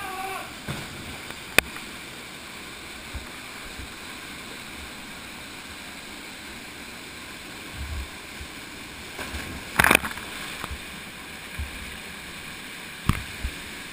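Steady rush of a small waterfall pouring into a pool, with water sloshing close to the microphone. A few sharp knocks sound over it, the loudest about ten seconds in.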